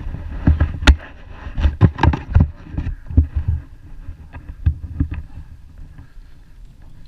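Honda MTX two-stroke dirt bike ridden over a rough dirt track, heard from a helmet camera. Irregular thumps and knocks from the bumps sit over a low rumble. They are loudest and most frequent in the first three seconds and thin out after about four seconds.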